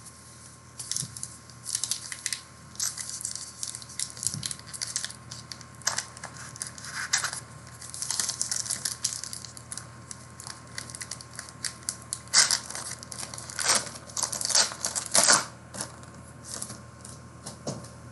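Trading card pack wrappers being torn open and crinkled by hand: irregular ripping and crinkling, loudest in a cluster of sharp crackles in the second half.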